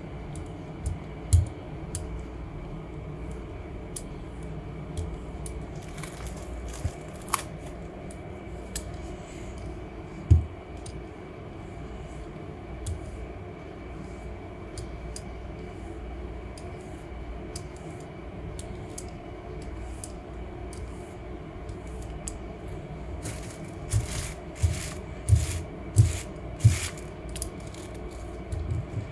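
Light clicks and knocks from a rubber brayer being rolled and handled over a gel printing plate and paper, over a steady low background hum. A quick run of louder clicks and knocks comes near the end.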